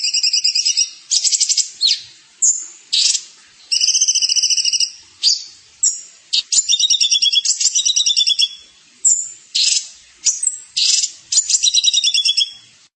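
Songbird singing: repeated high-pitched phrases of fast, rattling trills, each about a second long, broken up by short sharp notes. The song cuts off abruptly at the very end.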